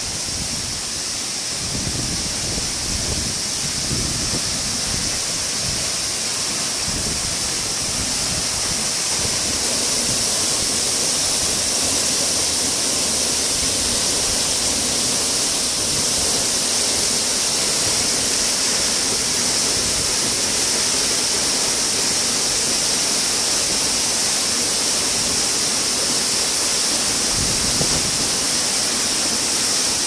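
Waterfall carrying a lot of water, plunging onto rocks close by: a steady rush of falling water that grows a little louder over the first several seconds.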